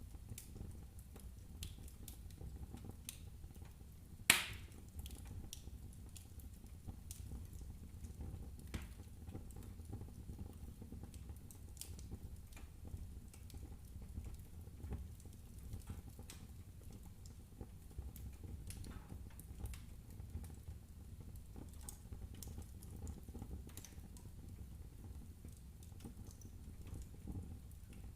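Wood fire in a fireplace crackling: scattered sharp snaps and pops of burning logs over a low steady rumble, with one much louder pop about four seconds in.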